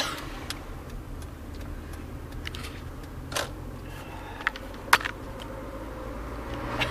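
Inside a car: a low steady rumble with scattered sharp clicks and taps, the sharpest about five seconds in.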